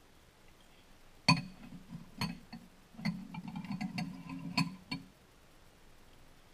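Metal spoon clinking against a ceramic cereal bowl, a few sharp ringing clinks between about one and five seconds in, with a low buzzing sound under the later clinks.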